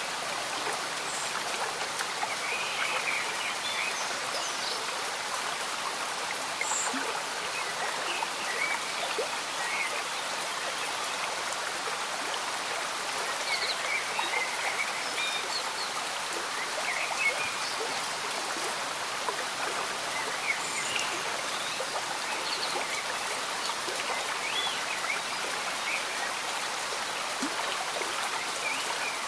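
Slow-moving stream bubbling steadily, with gentle rain falling; short high gurgles stand out here and there.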